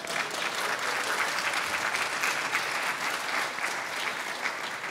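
Audience applauding, a dense patter of many hands clapping that swells quickly at the start, holds steady, and begins to thin near the end.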